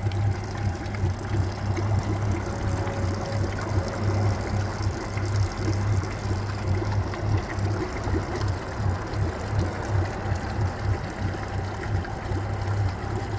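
2019 Yamaha 300 hp V6 four-stroke outboard idling steadily after a full service, with water trickling and splashing from the running motor. The mechanic judges it good to go.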